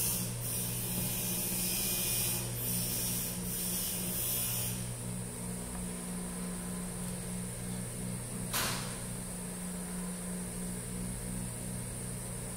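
Steady low electrical hum with a hiss over it. The hiss drops away a little before halfway, and there is one short click about two-thirds through.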